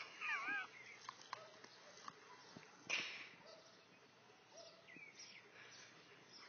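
A dog snapping and sniffing at garden-hose water in the grass, with scattered small clicks. A short wavering whine comes near the start, and a brief, louder burst of noise about three seconds in.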